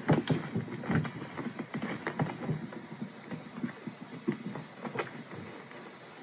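A cat rummaging head-first inside a handbag: irregular rustling, scratching and small knocks, with a few louder knocks in the first couple of seconds, thinning out near the end.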